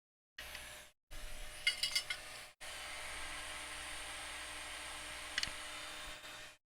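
Hot air rework station blowing a steady hiss while desoldering a USB-C port, with a few metal tool clinks before it and a single click near the end. The sound stops and starts abruptly in short edited pieces.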